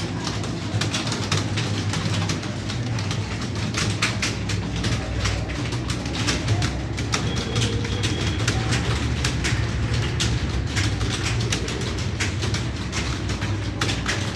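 Computer keyboard typing: rapid, irregular keystroke clicks without a break, over a steady low hum.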